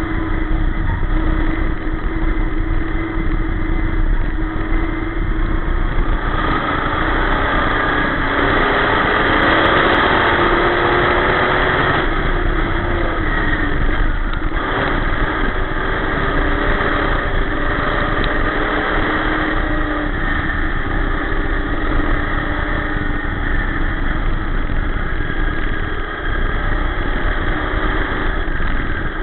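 Dirt-track sportsman race car's engine heard from inside the cockpit at racing speed, its pitch rising and falling with the throttle. It climbs a few seconds in and drops back near the middle.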